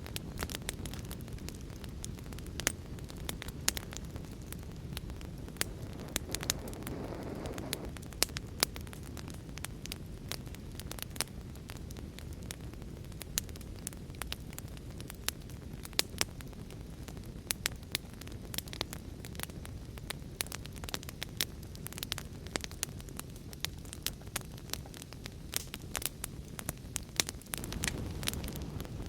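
Wood fire crackling with frequent sharp pops over a steady low hiss and rumble of heavy rain, with a brief swell about seven seconds in.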